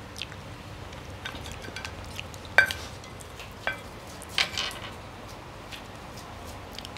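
Cutlery clinking and scraping on a plate while eating spaghetti, with a sharp ringing clink about two and a half seconds in and a few softer clicks and scrapes after it.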